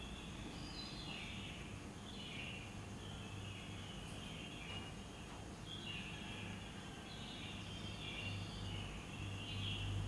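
Small birds chirping and twittering without a break, many short calls overlapping, over a low steady hum.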